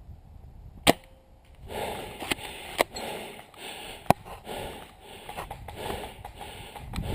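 A person breathing close to the microphone in quick, puffing breaths, with several sharp clicks over it. The loudest click comes about a second in and another about four seconds in.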